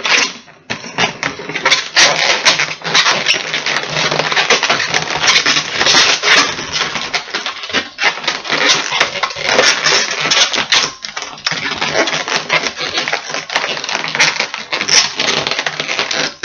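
Inflated latex 260 modelling balloons squeaking and creaking against each other and against the hands as they are twisted and fastened together: a dense, crackly run of rubbing squeaks with a couple of short breaks.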